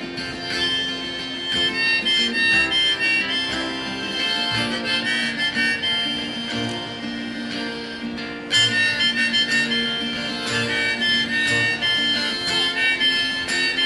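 Harmonica playing a solo over strummed acoustic guitar and plucked upright double bass, with no singing. The harmonica gets suddenly louder about eight and a half seconds in.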